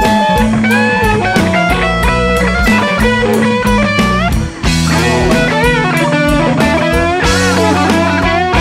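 Electric blues band playing an instrumental break: a lead electric guitar plays bending notes over drums.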